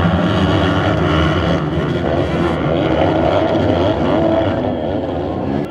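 A pack of motocross dirt bikes racing, many engines revving up and down over one another.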